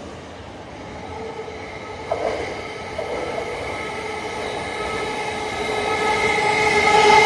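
JR East E353 series electric train approaching along the track, its running noise growing steadily louder, with a steady high whine laid over the rumble. A sharp clack about two seconds in.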